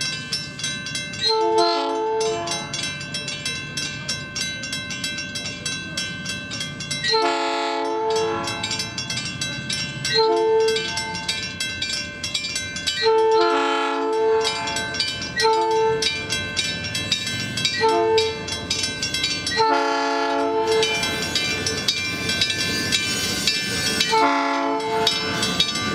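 An electric commuter train's air horn sounds about eight blasts, some short and some a second or more long, over the rapid, steady ringing of a Western-Cullen-Hayes electromechanical crossing bell. Near the end the train rolls through the crossing with a rising rumble.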